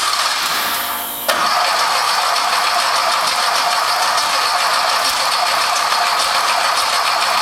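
Air-cooled Porsche 914 Type IV flat-four on a dyno being cranked over by its starter without catching. The cranking drops out for a moment about a second in and then starts again suddenly.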